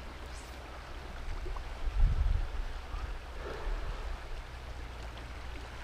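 Flowing river water around the wader: a steady low rumble with a light wash of current, swelling briefly about two seconds in.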